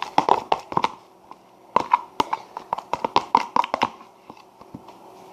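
Homemade slime worked and squished in the hands, making a quick, irregular run of sticky clicks and pops in two spells, a short one at the start and a longer one from about two seconds in.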